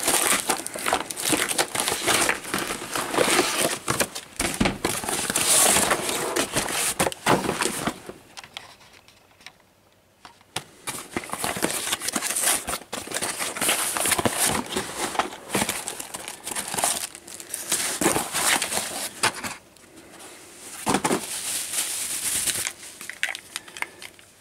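A cardboard parcel being unpacked by hand: plastic packing tape peeled and torn, the box opened and air-filled plastic packaging crinkled. The crinkling comes in long bursts, with a short lull about nine seconds in.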